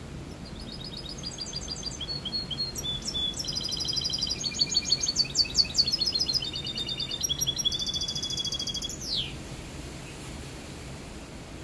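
Caged mixto, a wild finch crossed with a canary, singing one long phrase of rapid high trills and chirps that starts about half a second in and ends with a quick falling whistle about nine seconds in.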